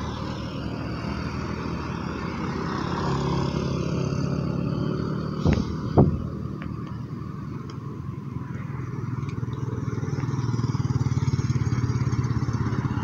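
Road traffic going by: motorcycle and other vehicle engines running steadily, growing louder over the last few seconds as a vehicle comes closer. Two sharp, loud knocks come about five and a half and six seconds in.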